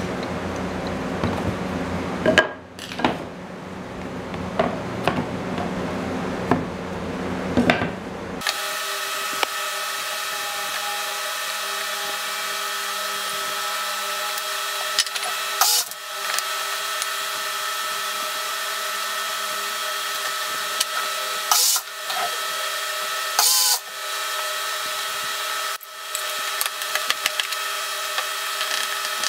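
Workshop sounds: clatter and knocks of wooden boards being handled on a bench, then from about eight seconds in a steady machine drone made of several even tones, with a few sharp knocks over it.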